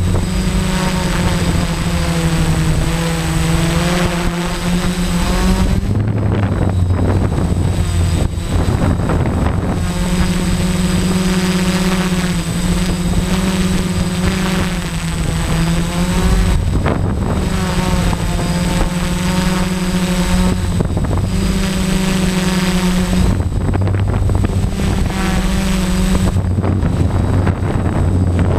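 DJI F550 Flame Wheel hexacopter's six electric motors and propellers droning, heard from a camera mounted on the craft. The hum steps up and down in pitch every few seconds as the motor speeds change.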